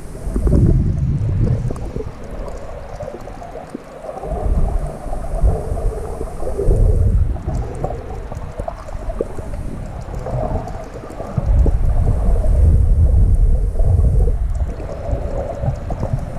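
Muffled underwater rumbling and gurgling of water moving around an underwater camera, in low surges that swell and fade, the longest one near the end.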